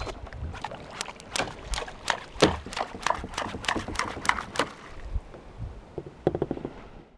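Irregular sharp knocks and taps on a kayak, about two or three a second, thinning out about five seconds in, with a quick flurry of taps near the end.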